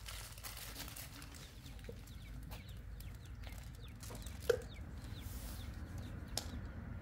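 Faint short animal calls over a low steady hum, the loudest single call about four and a half seconds in.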